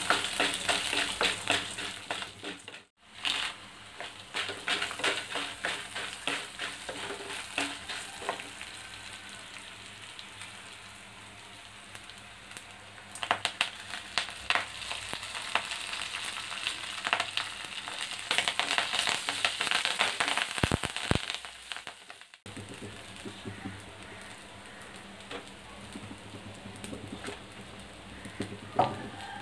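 Lentils, garlic, curry leaves and dried red chillies frying in a little oil in a kadai, sizzling and crackling, with a wooden spatula scraping and stirring against the pan. The sizzle grows louder for a few seconds twice partway through.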